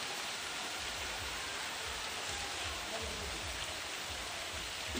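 Steady rain falling on trees and foliage, with an uneven low rumble from about a second in.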